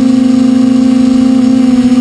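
TBS Discovery quadcopter's electric motors and propellers humming loudly at one steady pitch, as picked up by the camera on the drone itself, with a slight shift in pitch about a second and a half in.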